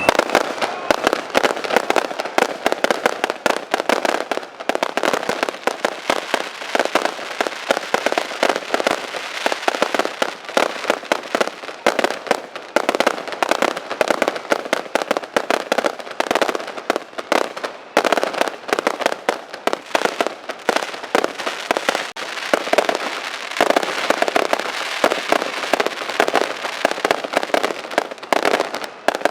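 Fireworks display: a dense, unbroken barrage of rapid firecracker bangs and crackles, many per second, starting abruptly.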